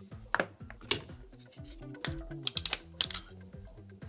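Sharp clicks and snips of pliers and wire strippers cutting and stripping electrical cable ends, with a quick cluster of clicks about two and a half seconds in, over background music.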